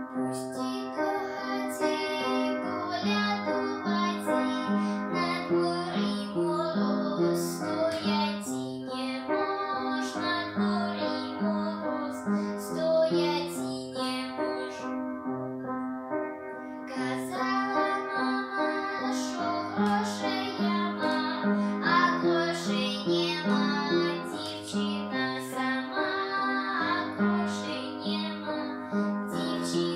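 A young girl singing a folk song solo over a piano accompaniment, with a short break in the singing about halfway through while the accompaniment plays on.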